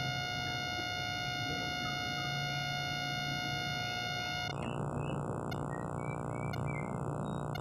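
A steady buzzing tone that changes to a denser buzz about halfway through, with a few faint short chirps over it in the second half.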